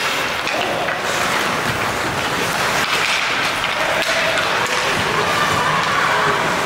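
Ice hockey game in an indoor rink: a steady wash of skates on the ice and arena noise, with faint distant shouts from players or spectators.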